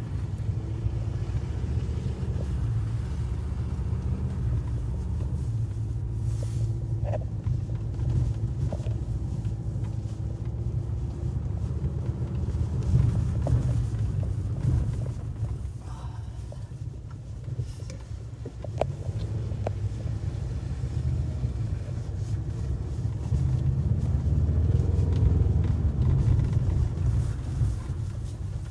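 Car engine and tyre rumble heard from inside the cabin as the vehicle climbs a snowy dirt track. The engine note rises and falls, and it revs up louder for a few seconds near the end. There are a few light knocks along the way.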